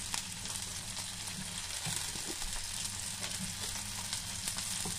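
Chopped onion, garlic, tomato and peas sautéing in oil in a pan, a steady sizzling hiss with fine crackles.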